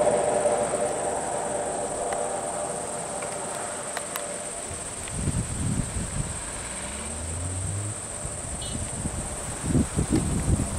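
Insects buzzing steadily at a high pitch. Underneath, a low engine hum with a brief rising note after about six seconds, and low rumbling buffets about five seconds in and again near the end.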